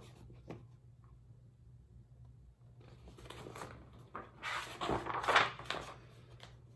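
Pages of a picture book being handled and turned. There is a soft click at the start, then a rustle and flap of paper about three to five and a half seconds in.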